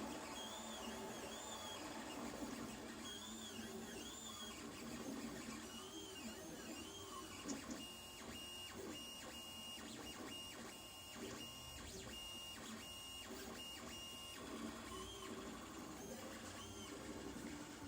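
Lulzbot TAZ 2 3D printer's stepper motors moving its axes, with short whines that rise and fall as the head speeds up and slows. In the middle stretch, a steady high whine is broken by regular ticks.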